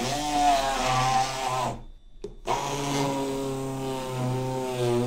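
Electric blender motor running, puréeing frozen banana chunks with milk, in two bursts of about two and three seconds with a short pause between.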